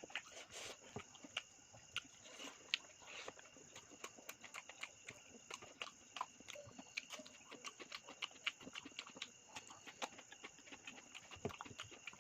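Close-miked chewing and mouth sounds of a person eating: irregular wet clicks and smacks, several a second, over a faint steady hiss.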